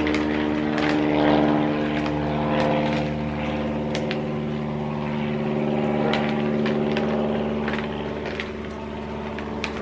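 A motor running with a steady, even hum, with a few faint clicks over it.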